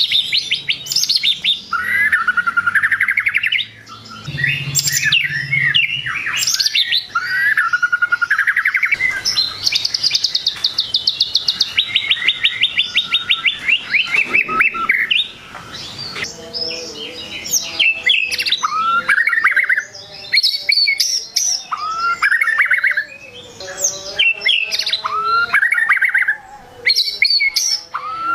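White-rumped shama (murai batu) singing a long, varied song of rich whistled phrases, with a run of fast repeated notes in the middle and then short rising whistled phrases every two seconds or so. It is the kind of song that riles rival shamas.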